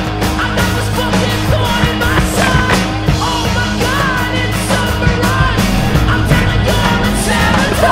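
Rock music with a singing voice over a steady drum and bass beat.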